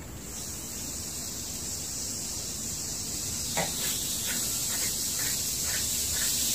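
Baking soda and vinegar fizzing as the carbon dioxide reaction foams up out of a small bottle: a steady hiss that grows louder, with a few faint ticks from about halfway through.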